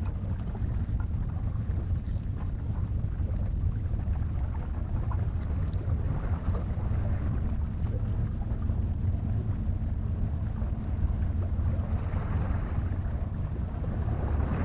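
Steady low rumble of wind buffeting the microphone at the water's edge, with a soft wash of small waves against the shore rocks that swells now and then.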